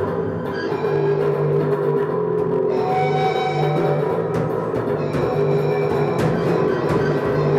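No-wave rock instrumental: electric bass holding long low notes under irregular drum hits.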